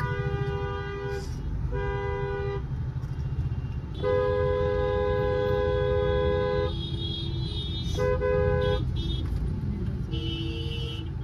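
Car horns honking in traffic: several separate honks, the longest lasting about two and a half seconds a few seconds in, and a horn of a different pitch near the end. Under them is a steady low rumble, heard from inside a car.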